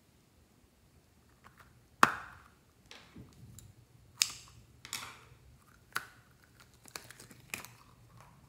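Scissors snipping through the rubber skin of a squishy ball in a series of sharp snips at irregular spacing, about six in all. The loudest comes about two seconds in.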